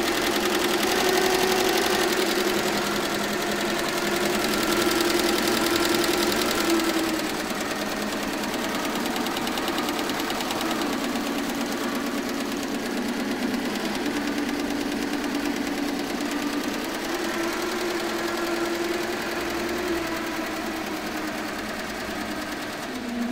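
FUWEI BC1503C three-head cap embroidery machine running: its needles stitch in a fast, steady chatter over a motor hum that steps in pitch now and then.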